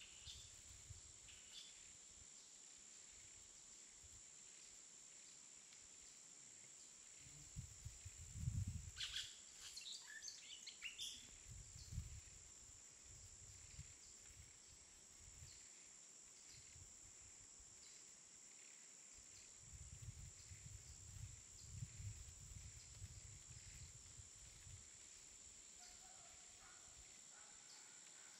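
Near-silent forest ambience: a faint steady high insect whine throughout, a few bird chirps about nine to eleven seconds in, and occasional low rumbles.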